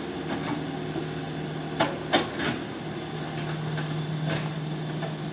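Excavator's diesel engine running steadily with several sharp metallic clanks, the loudest two close together about two seconds in.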